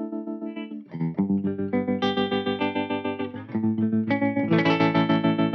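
Electric guitar chords played through an MXR tremolo pedal in its Revo (Leslie-style rotary) mode, with a slight drive. The volume pulses quickly and evenly while the chords change several times.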